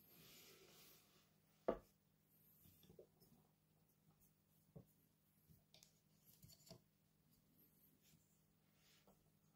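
Quiet handling of two Blue Yeti microphones: a soft rub in the first second, one sharp knock just under two seconds in, then a few faint taps and clicks as the microphones are turned round and set down.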